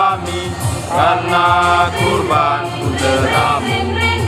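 Catholic youth choir singing a hymn in Indonesian in several voices together, with a steady low layer of sound beneath the sung notes.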